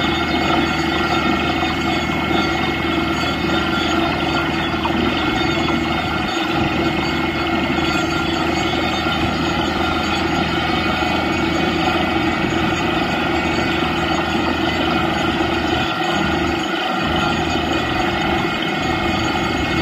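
Truck-mounted borewell drilling rig running steadily at the wellhead, with water and crushed-rock cuttings blown up out of the borehole and gushing out under the discharge hood in a continuous spray: the bore has struck water.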